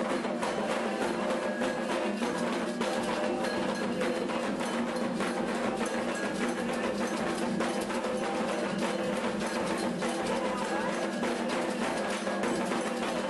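Candomblé Angola ritual music: atabaque hand drums and hand clapping keep a dense, steady rhythm under a group singing a cantiga for Iansã.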